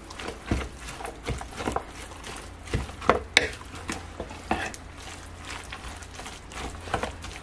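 A utensil stirring seasoned potatoes, broccoli and pepper in a pan, with irregular scrapes and knocks against the pan. The loudest clatter comes a little past three seconds in.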